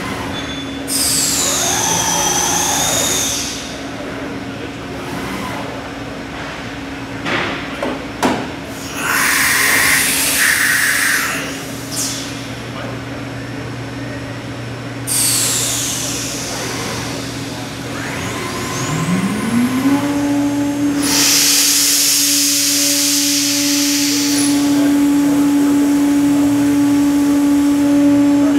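A 5-axis gantry CNC router cutting foam tooling board: its spindle runs with a steady tone, broken by repeated bursts of hissing cutting noise. About two-thirds of the way through, the spindle pitch rises and then holds steady at the higher speed.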